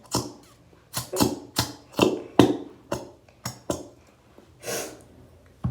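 A quick, fairly even series of sharp taps, about three a second, stopping a little over halfway through, followed by a short hiss.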